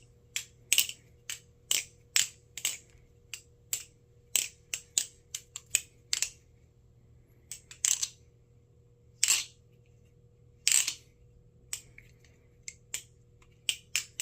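Squiddy-AL aluminium-handled balisong (butterfly knife) being flipped, its pivots lubed: irregular sharp clicks of the handles and latch swinging and meeting, some single and some in quick clusters of two or three.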